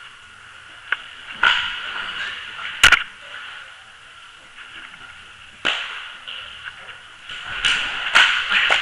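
Hollow knocks and thumps inside a plastic roller ball on water as the rider tumbles and hands and feet strike the shell, with water sloshing against it; about half a dozen sharp knocks, the sharpest about three seconds in, several more near the end.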